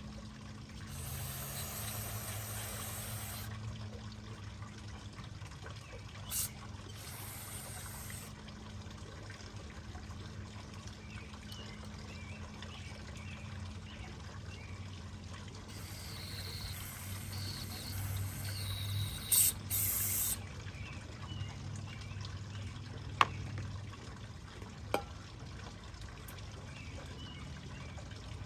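Aerosol carburetor cleaner sprayed in several hissing bursts into a varnish-gummed carburetor, the longest lasting about four seconds, with liquid running off. Two sharp clicks come near the end, over a low steady hum.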